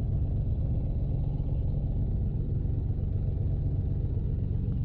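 Corvair-based air-cooled flat-six engine of a Zenith 601 light aircraft idling after the run-up, a steady low drone heard in the cockpit.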